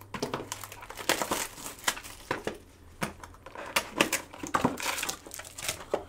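Foil wrapper of a Bowman Chrome baseball card pack crinkling irregularly as hands work it.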